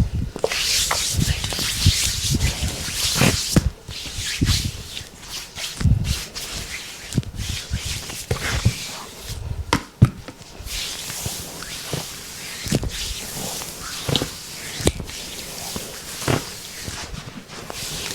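Hands rubbing and kneading bare skin during a deep-tissue massage: a hiss of skin friction, loudest in the first few seconds, broken by short sharp smacks of hand on skin at irregular intervals.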